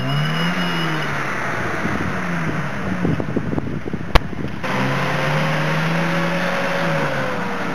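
Engine of a Kia Sportage SUV stuck in a muddy rut, revving up and down in pitch as it works to get out. There is a burst of crackle, then a single sharp click about four seconds in.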